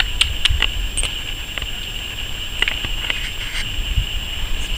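Outdoor background noise: a steady high buzz and a low rumble, with scattered light clicks.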